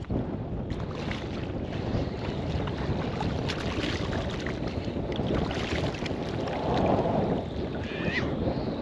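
Steady wind buffeting the microphone over lapping shallow water, with short splashes as a hooked fish thrashes at the surface while it is reeled in.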